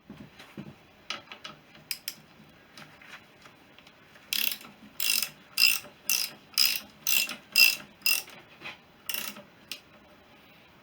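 Socket ratchet being worked on a bolt: a few scattered clicks, then about ten short ratcheting strokes, roughly two a second, starting about four seconds in.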